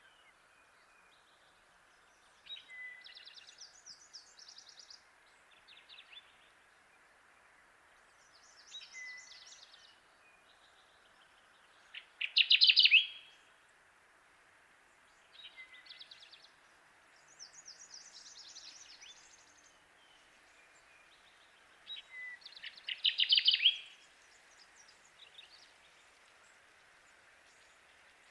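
Kirtland's warbler singing: short bursts of rapid, ringing chip notes repeated every few seconds, two of them much louder than the rest, over a steady background hiss.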